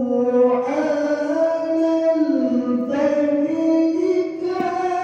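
Male qari reciting the Quran in a high, melodious voice, drawing out long ornamented notes. The pitch steps up about half a second in, dips and glides around the middle, and climbs again after three seconds.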